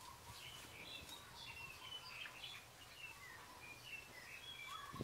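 Faint birds chirping: many short, high chirps and brief whistled notes, scattered irregularly, over a low, steady background murmur.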